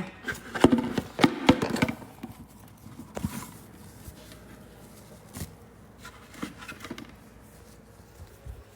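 Household things being handled during cleaning: a quick clatter of clicks and knocks in the first two seconds, then a few scattered single knocks.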